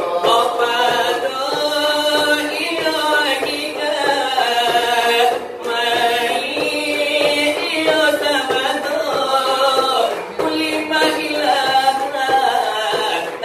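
Selawat dulang: singers chanting a Minangkabau devotional song in long, melismatic phrases over the beaten brass tray (dulang), with short breaks between phrases about five and ten seconds in.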